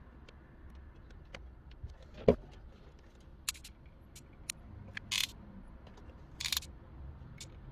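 Handling noises of a thin plastic drink bottle and a hot glue gun: scattered small clicks and crinkles, one sharp knock about two seconds in, and two short crinkling rustles of the plastic past the middle.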